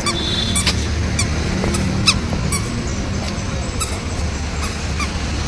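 A toddler's squeaky shoes squeak with each step, a short high chirp about twice a second, over a steady low hum of street traffic.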